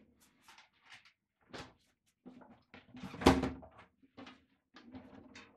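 Knocks and clatter of kitchen things being handled on a countertop, a series of short clicks with one loud thump about three seconds in.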